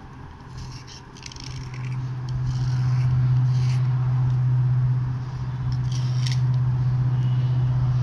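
Metal blade scraping a dry slate pencil in a series of short strokes. A steady low hum swells about two seconds in and is the loudest sound.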